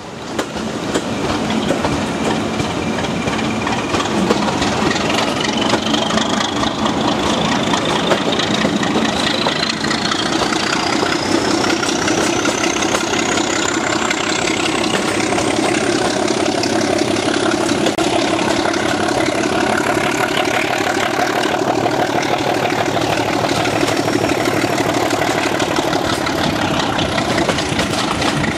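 Class 37/9 diesel-electric locomotive's Ruston RK270T engine working hard under load, with a thin high whine climbing steadily in pitch for most of the time before levelling off and dipping a little near the end, over the rumble and clatter of the train running on the rails.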